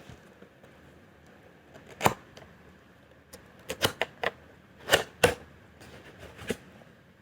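Scattered sharp clicks and taps, about a dozen at uneven intervals with a quick cluster in the middle, from a newly unboxed keyboard and its packaging being handled.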